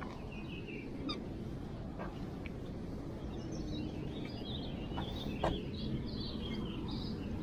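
Steady low rush of water pouring through a spillway, with faint bird chirps over it and a few sharp clicks, the strongest about five and a half seconds in.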